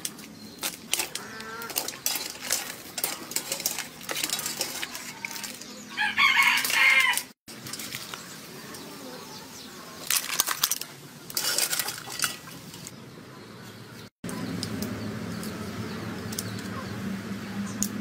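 Scattered clinks and knocks of cooking pots and utensils, with a rooster crowing loudly about six seconds in. A steady low hum fills the last few seconds.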